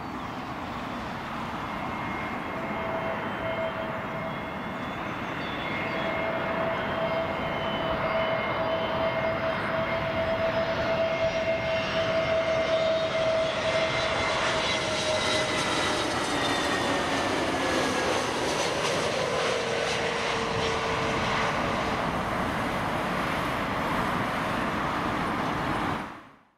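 Airbus A320neo jet engines on final approach passing overhead. A steady engine whine over a rushing jet noise grows louder toward the middle, then slides down in pitch as the aircraft goes past.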